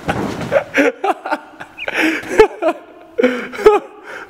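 People laughing in short bursts, with a few soft thuds of large vinyl-covered foam blocks being knocked over.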